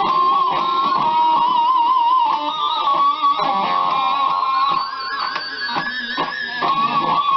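BC Rich Mockingbird electric guitar played with harmonics that jump out as high sustained notes, wavering up and down in pitch.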